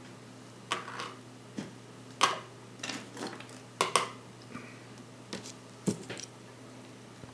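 Small watchmaker's hand tools clicking and clinking on the workbench as they are picked up and set down in a search for the right screwdriver: a dozen or so light, irregular taps over a low steady hum.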